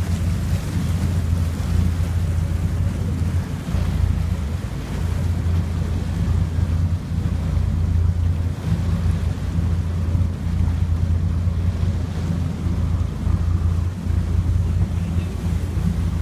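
Wind buffeting the microphone on a moving motorboat: a loud, low rumble that drops out briefly a few times, over the rush of water past the hull.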